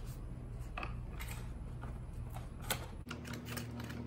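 Scattered small clicks and rustles of hands working a shop rag around a motorcycle's spin-on oil filter and gripping it, with the clicks coming faster near the end.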